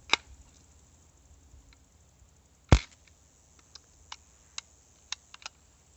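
A BB air gun firing a single sharp shot a little under three seconds in, with a light click at the start and several faint clicks afterwards.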